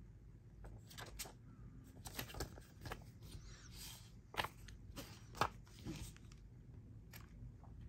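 Hands handling small plastic parts and packaging: a scatter of light clicks and taps with a brief crinkling rustle near the middle, the loudest taps about four and a half and five and a half seconds in.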